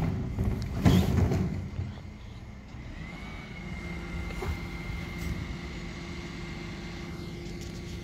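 Refuse collection lorry running close by, with a loud clunk about a second in; from about three seconds a steady high-pitched whine sits over the engine.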